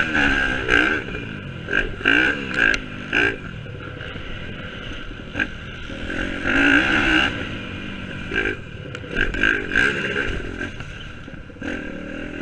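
Pit bike's single-cylinder four-stroke engine revving in repeated throttle bursts, the note rising and falling between louder pulls and quieter coasting stretches.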